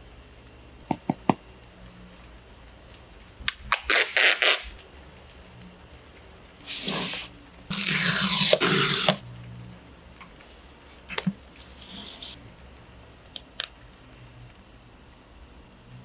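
Handling sounds of a smartphone and its retail box being unboxed. There are a few sharp clicks and taps, then several loud hissy scraping and peeling sounds of the packaging, the longest lasting about a second and a half. A shorter rustle and two small clicks come near the end.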